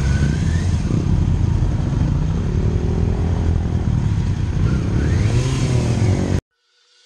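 Motorcycle engine heard from on board the rider's own bike, accelerating away with rising revs and wind noise. About six seconds in it cuts off abruptly and faint music begins to fade in.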